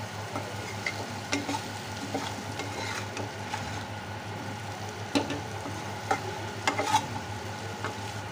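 Fried taro pieces sizzling in spiced oil in a frying pan while a metal spoon stirs them, with scattered scrapes and taps of the spoon against the pan.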